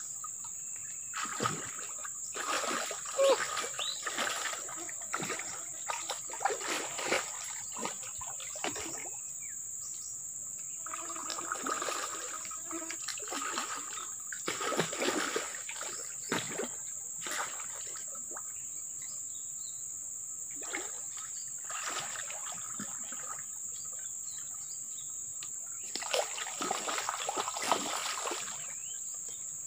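A hooked giant snakehead (toman) thrashing at the water's surface as it is played in on a rod, in repeated bursts of splashing and sloshing with quieter pauses between. The last and strongest splashing comes near the end, as the fish is drawn up to the bank.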